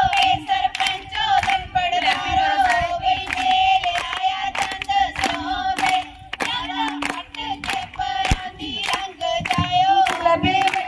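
A group of women sing Punjabi boliyan together over quick rhythmic hand clapping, the clapping accompaniment of a giddha folk dance.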